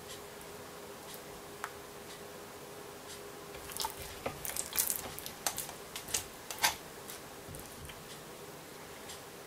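Faint handling sounds: a run of small sharp clicks and soft wet taps about halfway through, as a thin metal skewer pokes and taps the hard, spiny head of a raw Japanese stargazer on a wooden cutting board. A faint steady hum underneath.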